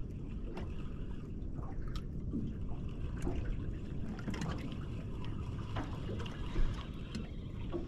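Water lapping and trickling against a small fishing boat's hull, with scattered light clicks and one louder knock late on.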